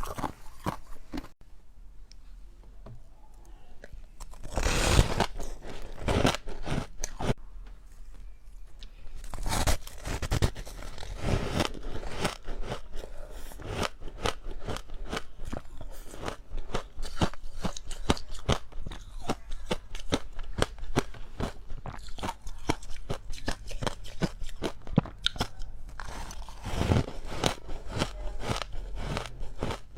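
Ice being bitten and chewed close to the microphone: dense, crunchy cracking and crackling, with a quieter stretch near the start and several louder bites after it.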